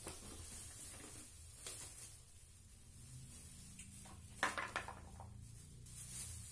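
Plastic stand-fan parts being handled and unpacked: light knocks and clatters of the plastic fan guard and blade, with plastic wrapping rustling. The loudest is a short pair of knocks about four and a half seconds in.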